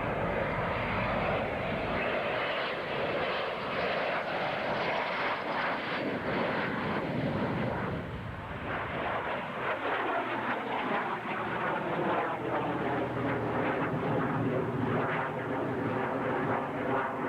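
Propeller airplane engine droning as the plane flies past, its pitch sliding downward about halfway through.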